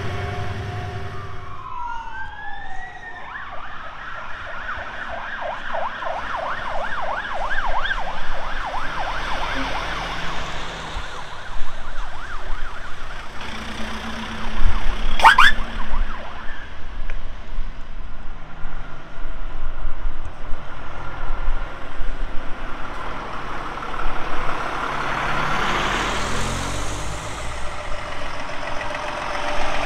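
A vehicle siren sounding a wail that sweeps up and down, then switching to a fast yelp for several seconds, over the low rumble of lorry engines. A brief sharp sound about halfway through is the loudest moment.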